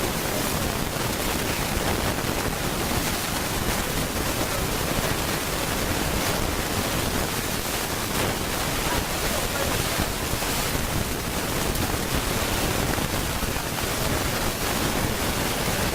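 Loud, steady hiss of a badly recorded show, an even noise floor with no distinct events; any dialogue is buried under it.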